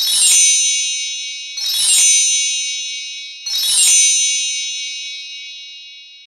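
Chimes played as a transition sound effect: three quick runs of high ringing tones, about a second and a half to two seconds apart, each ringing on and slowly fading.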